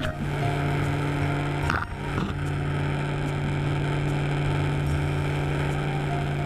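A motor-driven machine running with a steady low hum, with a short clatter and dip about two seconds in.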